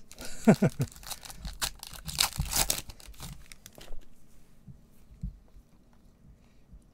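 Foil trading-card pack wrapper being torn open and crinkled by hand, with a short falling tone about half a second in; a few faint taps follow as the cards are handled.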